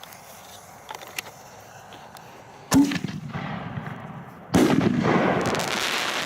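Two firework shells going off from mortar tubes about two seconds apart. Each is a sharp bang followed by a sustained rushing hiss, and the second is louder, its hiss lasting about two seconds.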